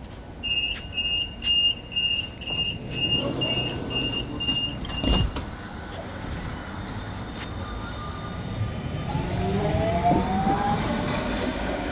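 London tram's door-closing warning: a rapid run of short high beeps, about three a second, for about five seconds, ending in a thud as the doors shut. Near the end the tram pulls away, its traction motors giving a rising whine over a low rumble.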